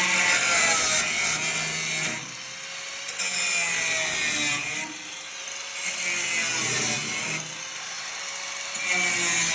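Handheld power tool running under load on exhaust work, a loud hissing cut that eases off and bites again every one to two seconds over a wavering motor whine.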